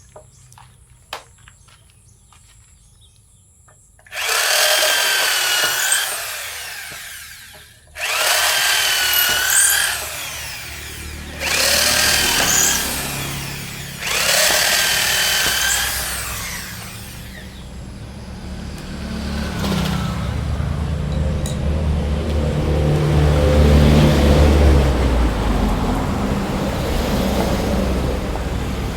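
Handheld electric power drill run in four bursts of two to three seconds each, its motor whine wavering as the load changes. After the bursts a low rumble builds up and carries on.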